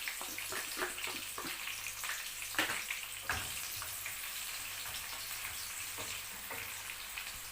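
Red onion sizzling and crackling in hot red palm oil, a steady patter of small pops with one sharper pop about two and a half seconds in.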